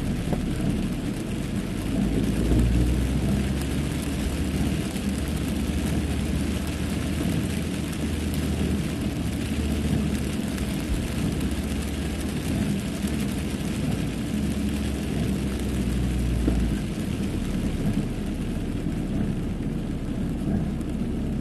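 Car driving through a heavy downpour, heard from inside the cabin: a steady low rumble of engine and tyres on the wet road under an even hiss of rain. The deepest rumble eases about three-quarters of the way through.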